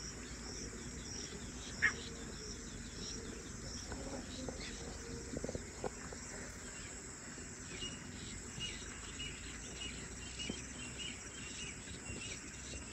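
Steady chirring of insects with a pulsing high rhythm. A single sharp call comes about two seconds in, and a run of short, repeated high notes follows in the second half: grey francolins calling.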